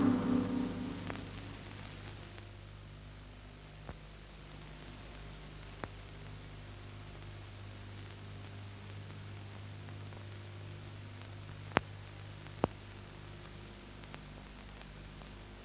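The last ring of the Rank Organisation gong dying away, then the steady hiss and low hum of an old film soundtrack, with a few sharp clicks, the two loudest close together near the end.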